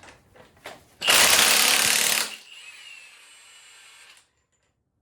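A few sharp tool clicks on the engine, then a loud hissing rush lasting just over a second. It drops to a faint hiss that cuts off suddenly.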